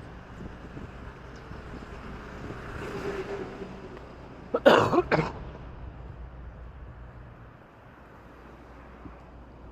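A person coughs twice in quick succession, loud and close, about halfway through, over a steady traffic hum with a vehicle swelling past a couple of seconds before.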